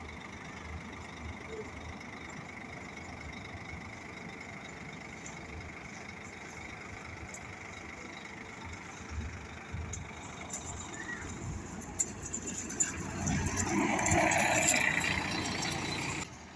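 Scania-chassis highway coach with a diesel engine running at low speed as it manoeuvres, a steady low rumble that grows louder over the last few seconds as it comes closer. A few short sharp sounds come in about twelve seconds in.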